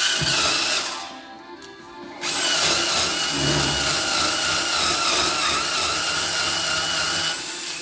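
Small cordless drill/screwdriver running as it drives a screw through a plastic electrical junction box into a wooden board. A short run comes first, then a longer steady whine of about five seconds starts about two seconds in; its pitch wavers slightly under load.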